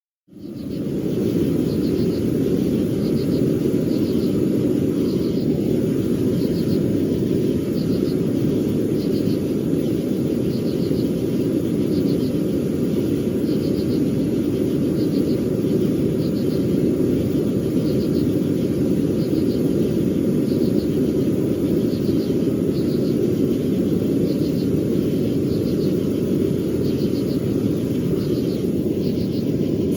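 Forge running with a steady low roar that starts suddenly and holds even throughout, with a faint regular ticking above it.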